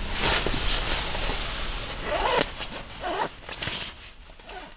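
Rustling and crumpling of a sleeping bag and bedding as someone shifts and settles into it, fading out near the end.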